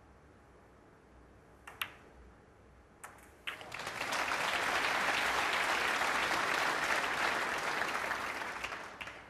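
Sharp clicks of snooker balls struck by the cue, about two seconds in and again about a second later. Then audience applause swells, holds for about five seconds and fades away, greeting a potted black.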